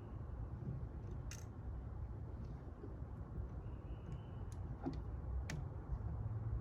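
A few sharp plastic clicks as fuses are pressed back into a fuse block, over a steady low rumble.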